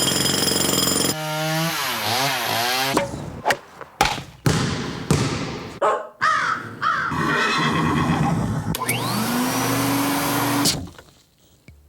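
A rapid montage of unrelated sound effects cut back to back, each lasting a second or two. It includes a warbling pitched call, sharp knocks and a whine that rises and then holds, and it stops abruptly about a second before the end.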